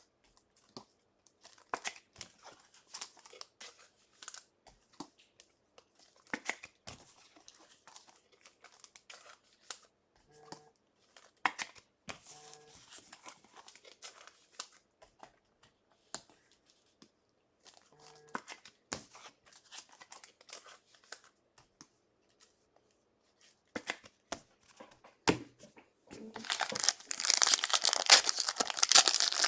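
Trading cards being handled, with scattered light clicks and rustles. Near the end a card pack's wrapper is torn open and crinkled loudly.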